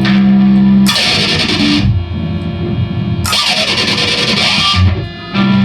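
Electric guitar played through distortion and effects, holding sustained low notes, with two bright hissing bursts layered in, about a second in and again after about three seconds.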